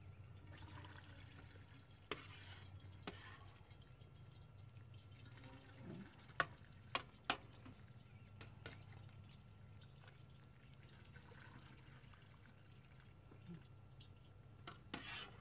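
A metal ladle scoops soft tofu curds and whey from a stainless steel stockpot, with faint pouring and dripping of liquid. A few sharp clinks of the ladle on the pot stand out, three of them in quick succession about halfway through.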